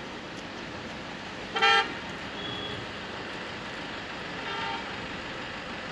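Vehicle horn: a short, loud toot about a second and a half in, and a fainter one around four and a half seconds, over a steady background hiss.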